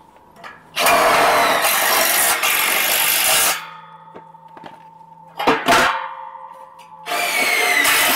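Cordless impact driver driving zinc-plated hex-head screws into galvanized steel square tube and brackets: one screw runs in for about three seconds, then come two sharp metal knocks, then the next screw starts about a second before the end.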